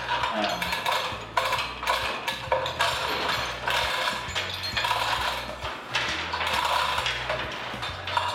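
Hand chain block hoist being worked: its chain rattling and clinking through the hoist with the ratchet pawl clicking, in many short, uneven runs, as a small diesel generator engine is lifted.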